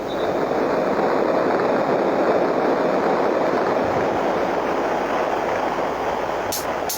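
A loud, steady rushing noise with no clear tone or beat, easing off slightly near the end.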